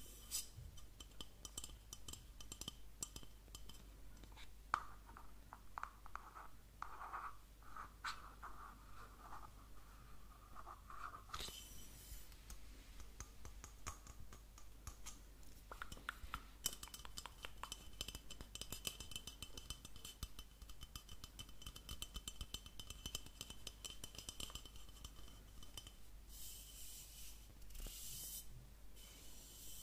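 Close-miked ASMR tapping and scratching on objects: a dense run of quick small taps and clicks, with stretches of scraping.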